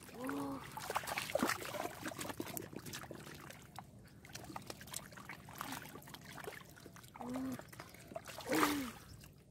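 Hands splashing and squelching in shallow muddy water while grabbing a big fish, with drips and small splashes throughout. A person makes a few short hums or grunts, near the start and twice near the end.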